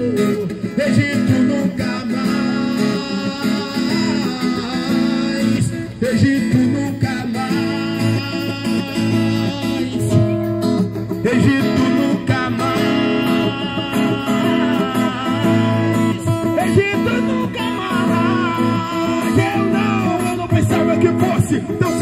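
Acoustic guitar strumming a worship song while a man sings into a microphone.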